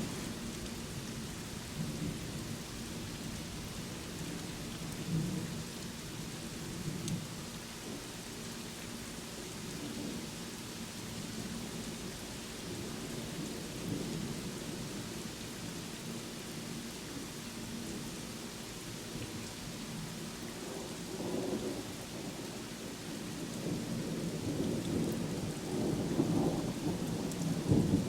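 Steady rainfall with thunder rumbling low underneath, the rumble swelling and growing louder near the end.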